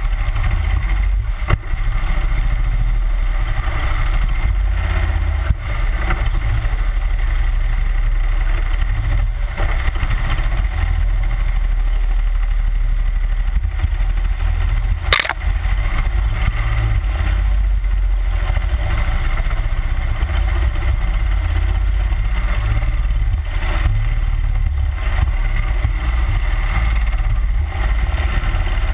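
A 31 hp Mud Buddy HyperDrive surface-drive mud motor pushing a jon boat along at a steady cruise, running with a constant low drone. A couple of sharp knocks come through, the loudest about halfway through.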